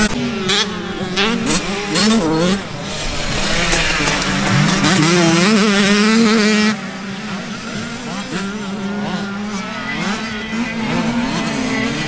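Several 50cc motocross bike engines revving, their pitches rising and falling over one another. The sound drops in loudness about seven seconds in.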